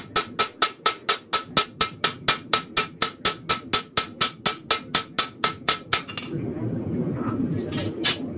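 Hand hammer striking a red-hot 1084 high-carbon steel knife blade on an anvil in quick, even blows, about five a second, each with a metallic ring. The hammering stops about six seconds in and starts again right at the end.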